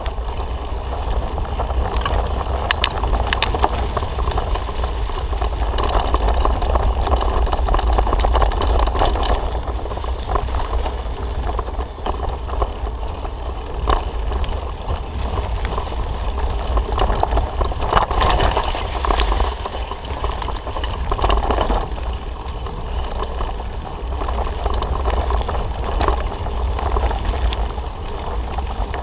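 Bicycle rolling fast over a rough dirt forest road: a steady low rumble of wind buffeting the camera microphone, with tyre noise and frequent short rattles and knocks from the bumps.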